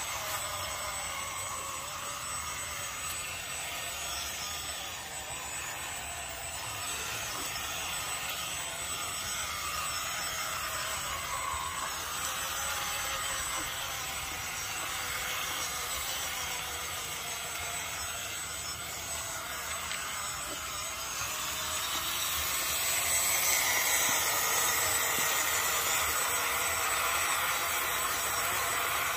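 Small electric motor and gearbox of a six-wheeled WPL B16 RC truck whining steadily as it crawls through mud and water, its pitch wavering with the throttle, louder in the last few seconds.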